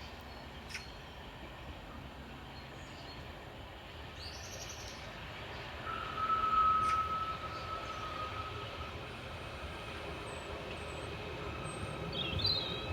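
Merseyrail Class 777 electric train approaching the station: a steady high whine for about three seconds partway in, then a low rumble that builds toward the end. Birds chirp briefly twice.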